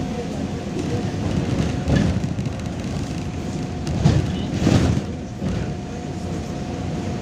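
Interior sound of a MAZ-203 city bus on the move: steady engine and road rumble with a faint steady whine, and a couple of louder knocks a little over halfway through.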